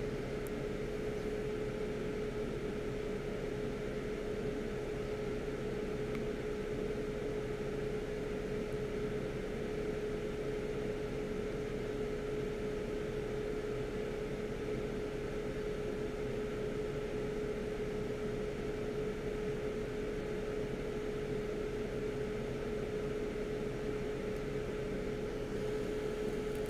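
Hot air rework station blowing at a reduced airflow setting through a 9 mm nozzle: a steady fan hum with one constant tone, while solder is wicked off a BGA chip's pads.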